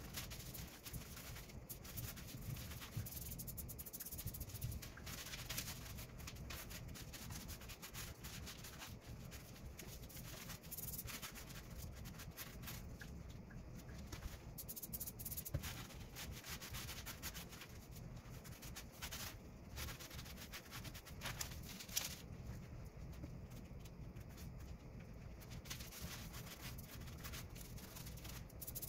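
A rag rubbing liquid sealer into rough stacked-stone ledger tile, with short hissing squirts from a trigger spray bottle now and then.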